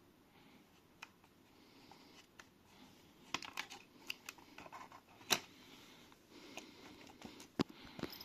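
Scattered small clicks and taps of a laptop's heatsink and cooling assembly being handled and set back in place over the graphics card, with a cluster of clicks around the middle and the sharpest tap a little after five seconds.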